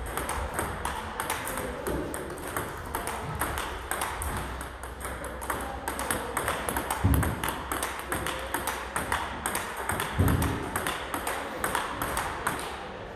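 Table tennis ball clicking back and forth off rubber-faced bats and the table in a fast, continuous backhand rally, several sharp clicks a second. Two dull low thuds come about 7 and 10 seconds in.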